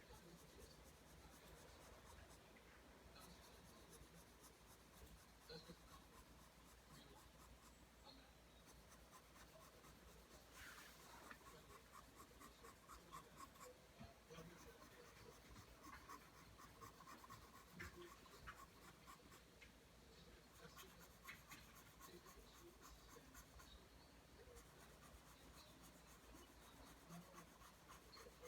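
Pencil drawing lines on paper, faint scratching in many short strokes one after another.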